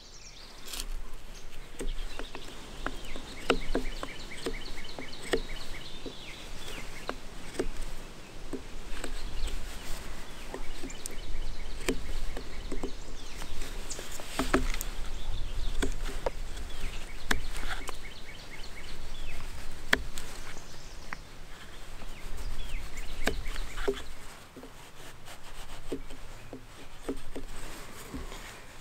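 Knife blade shaving and prying wood out of a green branch: a run of scraping strokes and small clicks as chips come away between two stop cuts. Birds chirp in the background.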